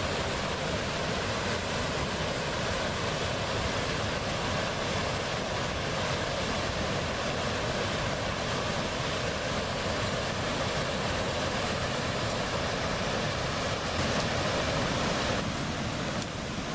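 Steady rushing of river water, a constant even roar that eases slightly near the end.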